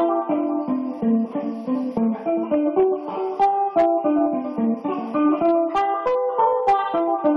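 A guitar played by hand: a quick run of single picked notes, several a second, each note ringing on.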